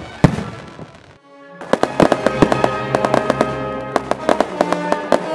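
Fireworks bursting in a dense run of sharp bangs and crackles over music with held tones. One loud bang comes just after the start, then a short lull about a second and a half in.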